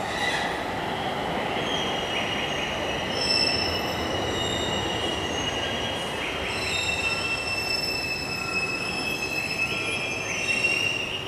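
JR East E721 series electric train pulling slowly into a platform as it slows to stop, its wheels squealing on the rails. Several high-pitched squeal tones come and go over the low running noise, loudest just before they cut off.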